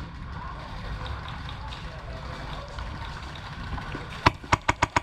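An airsoft gun firing near the end: one sharp shot, then a rapid, even string of shots at about six or seven a second. Before that, only a steady low background rumble.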